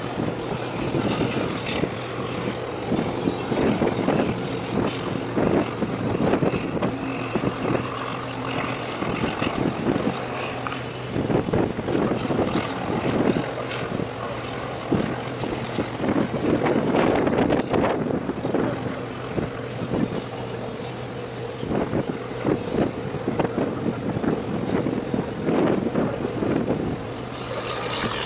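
Boat diesel engines running with a steady hum, from the small line-handling launch passing close and the tug working the container ship, under an uneven rushing noise.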